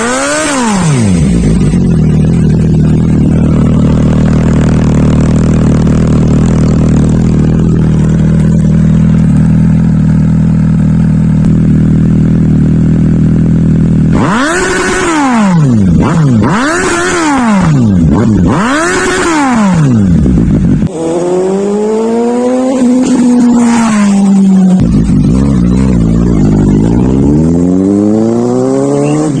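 Suzuki GSX-S750 inline-four engine running through a Black Widow slip-on exhaust: it idles steadily for about half the time, then is blipped three times in quick succession, followed by two longer revs that climb and fall.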